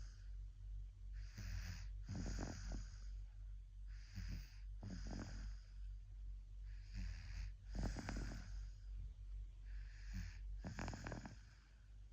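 Sleeping baby snoring: four breaths about three seconds apart, each a soft hissing breath that ends in a short rough snore.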